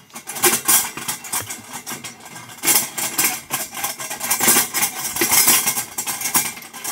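Rapid, irregular clicking and rattling of metal as a hand works at the ignition opening of a round convection kerosene heater, lighting its wick.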